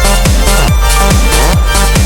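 Loud electronic dance music with a steady, fast kick-drum beat and sustained synth chords.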